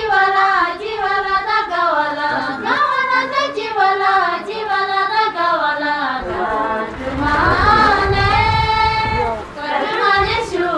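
Music with a high singing voice carrying a gliding melody, with a low rumble swelling under it from about seven to nine seconds in.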